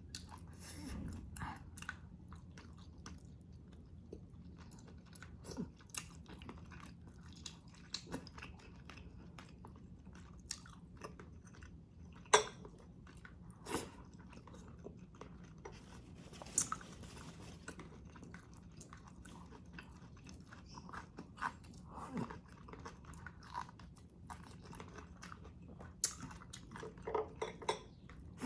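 Close-miked chewing and mouth sounds of a person eating fish sinigang, with scattered short clicks, the sharpest about twelve seconds in. A faint steady low hum lies underneath.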